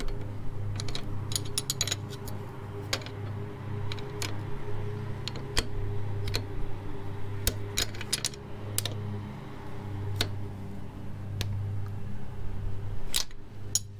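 Two steel combination wrenches clinking against a locknut and each other as the nut on a motorcycle's rear brake linkage is tightened: a dozen or so irregular sharp metallic clicks over a steady low hum.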